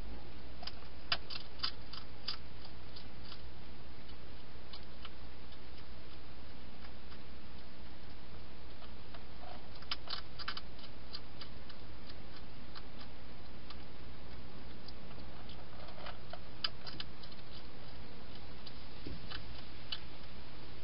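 Wild hedgehog eating from a bowl inside a plastic feeding box: sharp chewing and crunching clicks in short clusters about a second in, about ten seconds in and about sixteen seconds in, with scattered single clicks between. A steady hiss and low hum run underneath.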